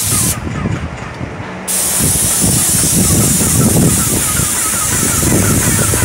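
Graco airless paint sprayer spraying from a gun on an extension pole: a steady hiss that cuts out about half a second in as the trigger is released, and starts again just under two seconds in.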